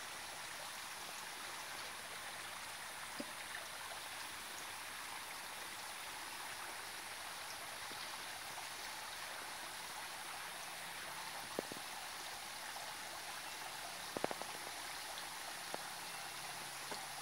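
Steady hiss of water splashing into a pond, with a few faint clicks, a small cluster of them about fourteen seconds in.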